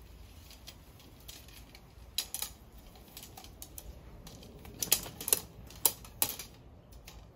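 Shock-corded fibreglass tent pole sections clicking and clacking together as the pole is shaken out and its joints snap home. A scatter of sharp clicks, loudest in a cluster about five to six and a half seconds in.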